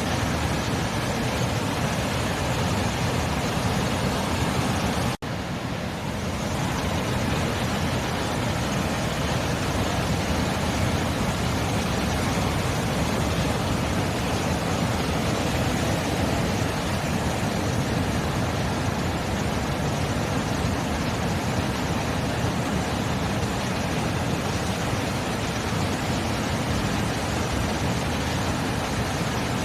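Ocean surf, a steady, even rush of breaking waves with no single wave standing out. It cuts out for an instant about five seconds in, then carries on as before.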